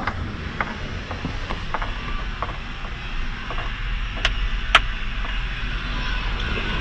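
Light clicks and knocks from handling inside a truck cab over a steady low rumble, with two sharper clicks a little past the middle.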